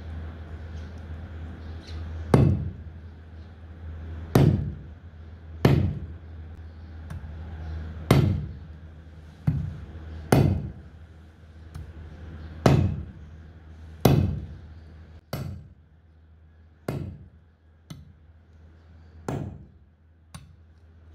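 Heavy meat cleaver chopping a cow trotter against a wooden chopping block: about a dozen sharp chops, one every second or two, getting fainter toward the end.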